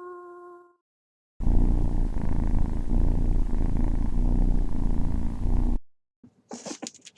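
A cat purring, a dense low rumble lasting about four seconds that cuts off abruptly. Before it, the end of a howl falling in pitch fades out, and near the end quick sharp clicks begin.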